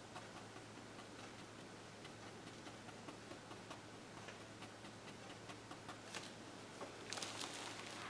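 Faint, irregular soft ticks and taps of a large flat bristle brush dabbing oil paint onto canvas, with a brief louder scuffing near the end.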